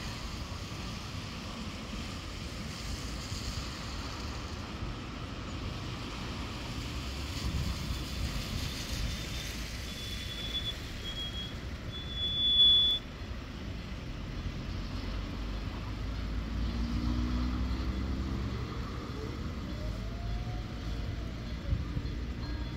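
Road traffic at a level crossing: a steady low rumble of vehicles on wet asphalt. About ten seconds in, a broken high tone builds to the loudest moment and cuts off suddenly about three seconds later. Near the end, an engine's pitch rises and falls as a vehicle moves off.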